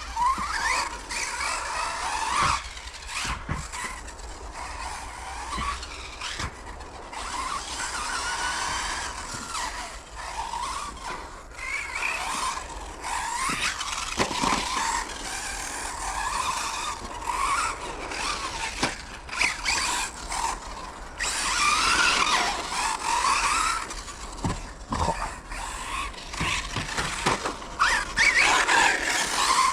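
Radio-controlled Hobao Hyper 10TT 2.0 truggy running on a carpet track: its 4250 kV brushless electric motor, on a 2S battery, whines in high glides that rise and fall with the throttle. A few sharp knocks come in between.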